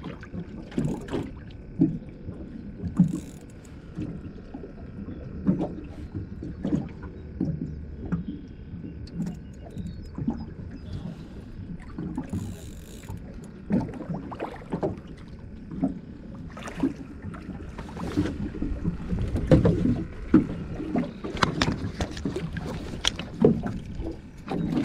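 Small waves slapping and lapping irregularly against the side of an aluminum fishing boat, with the knocks growing busier and louder in the last several seconds.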